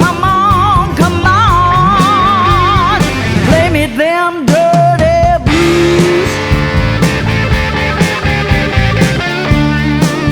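Blues-rock band playing a passage with no sung words: a lead line of bent, wavering notes over bass and drums. The low end drops out briefly about four seconds in, and the full band comes back in about a second later.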